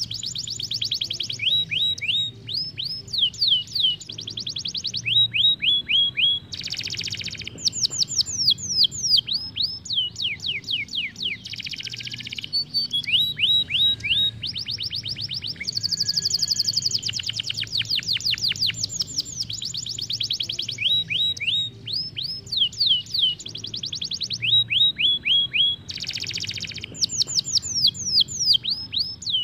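Isabel canary singing a long, unbroken song of fast trills. Each trill is a rapid run of repeated down-slurred notes, and the song switches to a new trill every second or so. A few short buzzy rolls break in between.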